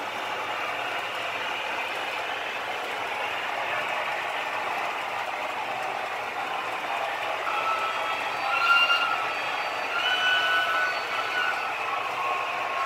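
H0-scale model trains running over layout track: a steady rolling rumble of small wheels on rails and motor hum. Thin high whining tones come and go in the second half.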